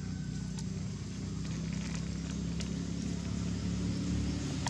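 A motor engine runs with a steady low hum that slowly grows louder, with a few faint crackles over it.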